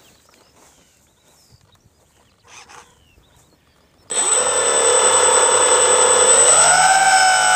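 Quiet for about four seconds, then an FPV quadcopter's electric motors and propellers start suddenly and spin with a steady high whine made of many tones; near the end the pitch begins to rise as the throttle comes up.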